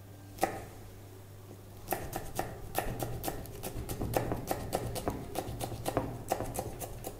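Knife chopping green chillies on a wooden chopping board: a single tap about half a second in, then quick, even strokes, about three to four a second, from about two seconds in.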